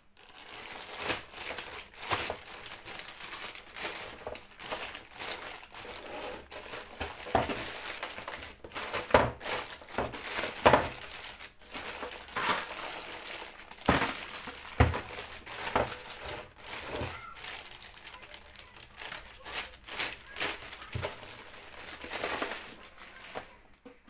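Clear plastic packaging bag crinkling and crackling as it is handled and pulled off a cooktop, with many sharp crackles, some louder than the rest, stopping near the end.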